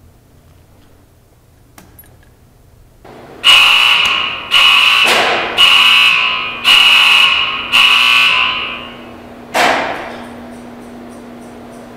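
Warning alarm of a high-voltage discharge rig giving five loud beeps about a second apart, each fading out, as the rig is readied to fire. Near the end comes a single sharp bang, and a steady low hum follows.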